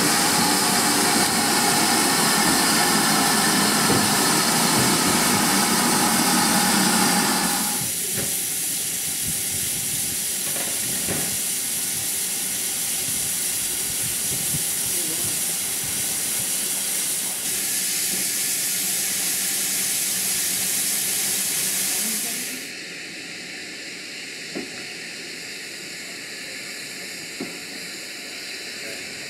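Steam hissing steadily from a GWR 0-6-2T tank locomotive, No. 5643. The hiss drops in level about a quarter of the way in and again near the end, where a few faint clicks sound.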